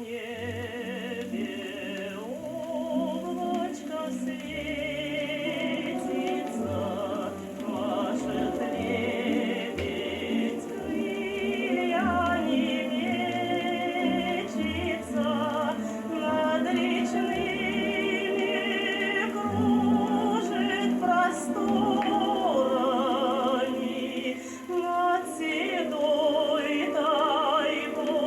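Music played from an old Soviet gramophone record of a Russian song: orchestral accompaniment with a wavering, vibrato melody over a steady bass line.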